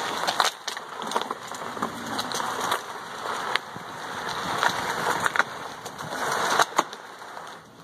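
Heavy grey plastic trash can loaded with dirt and crushed asphalt scraping across asphalt pavement as it is dragged in short heaves, with scattered knocks and clicks.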